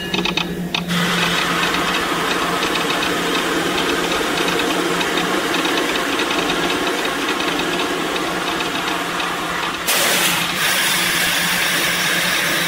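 Disneyland Railroad steam train heard from on board at a station stop: a steady mechanical running and rattling noise over a low hum. About ten seconds in, a louder hiss starts suddenly.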